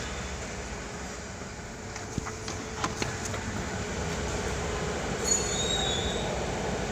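Steady mechanical running noise with a constant hum, a few light clicks a couple of seconds in, and a brief high squeal about five seconds in.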